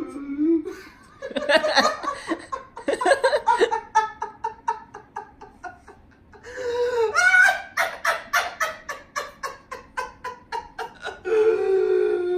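A person's voice making exaggerated noises: drawn-out wailing cries, one of them falling slowly near the end, broken up by runs of quick, pulsing laughter.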